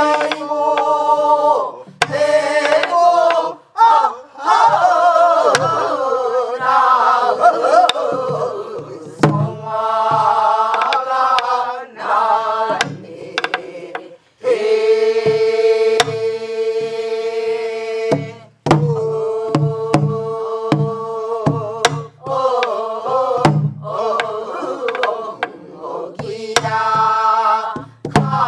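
A group singing a Namdo folk song (minyo) together in a strong, ornamented style, with one long held note about halfway through. Buk barrel drums are struck at intervals beneath the voices to keep the rhythmic cycle (jangdan).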